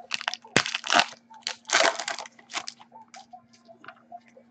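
A foil trading-card pack wrapper being torn open and crinkled by hand: a quick run of crinkling rustles, loudest in the first two seconds, then thinning to a few light handling sounds.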